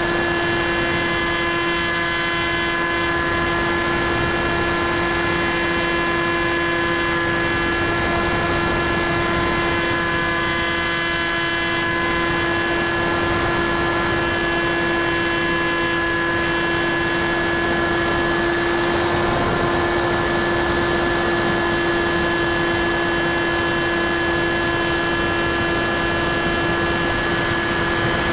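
Brushless electric motor and propeller of a Bixler 2 RC plane running at steady throttle, heard from the onboard camera as a constant buzzing whine over rushing airflow noise. A faint high tone slowly rises and falls in the background.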